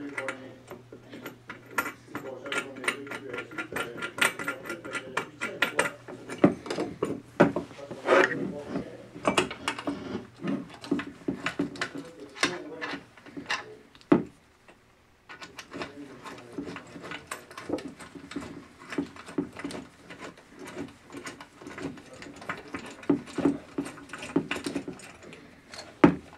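Clicking and knocking of an aluminium LED street light's pole-arm bracket being handled and fastened by hand and with pliers: a quick, even run of clicks for the first several seconds, a short break near the middle, then more scattered clicks and knocks.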